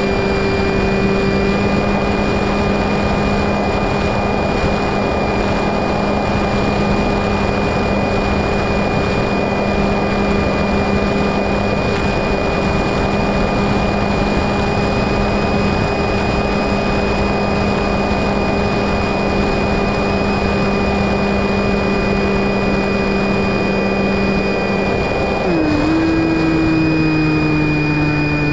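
Electric motor and propeller of an FPV Raptor RC plane running at a steady pitch, with wind rushing over the onboard microphone. About three-quarters of the way through, the pitch drops and stays lower as the motor slows.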